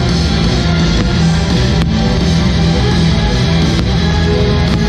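Background rock music with guitar, loud and continuous.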